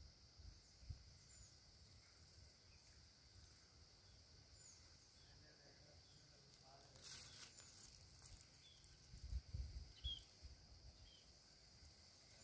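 Near silence: quiet outdoor ambience with a steady high insect drone, a few short faint bird chirps, and a few low rumbles on the microphone.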